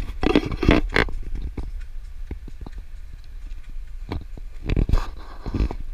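Wind rumbling on a handheld action camera's microphone, with knocks and scrapes of the camera being handled and carried: a cluster in the first second, light ticks in the middle, and a few heavier thumps near the end.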